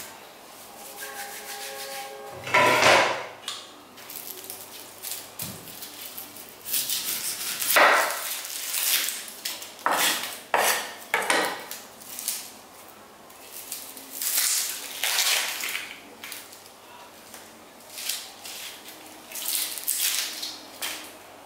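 An onion being peeled by hand: the dry, papery skin crackling and tearing in irregular bursts, with a knife knocking and scraping on a wooden cutting board.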